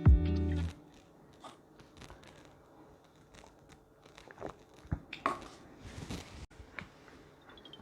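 Light crinkling and scattered small clicks of snacks and a beer bottle being handled, with a few sharper clicks in the middle. Near the end beer starts pouring from a bottle, a tone falling in pitch. A snatch of background music cuts off under a second in.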